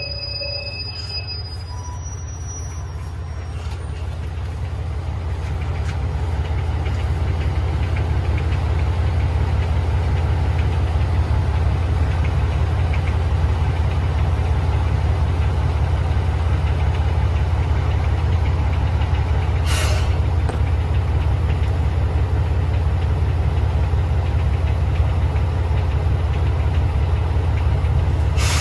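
Diesel railcar engine running with a steady low rumble that grows louder over the first several seconds and then holds, with a couple of short clicks.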